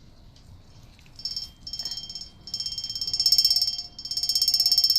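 High-pitched buzzing rattle pulsing about twelve times a second, coming and going in bursts: something in the house vibrating in time with a rotary subwoofer (Roto-sub) driven at 12 Hz.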